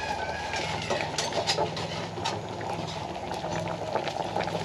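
A pot of fish simmering on the stove, bubbling and crackling over a steady low hum, with scattered light clicks and taps.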